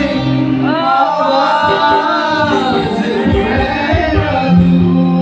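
Loud amplified live music with a singer holding long, wavering notes over sustained bass notes.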